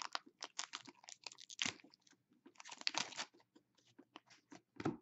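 Foil trading-card pack torn open and its wrapper crinkled, then the stack of cards handled and flicked through: a string of short crackles and clicks, with a few denser crinkling bursts.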